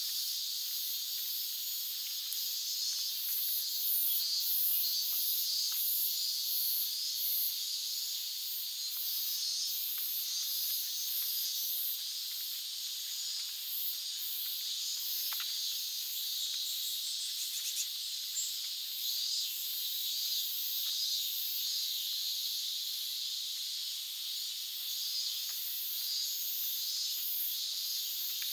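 Chorus of cicadas singing in the trees: a dense, high-pitched pulsing hiss that holds steady throughout.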